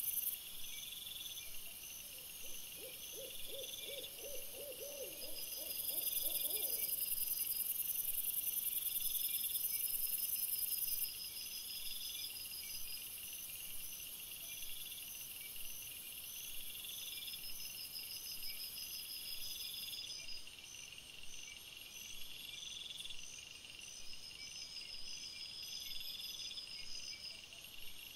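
Night insects, crickets, chirping and trilling steadily in even repeating pulses. Over this, from about two and a half seconds in, an owl gives a quick run of about ten short hoots rising slightly in pitch, lasting around four seconds.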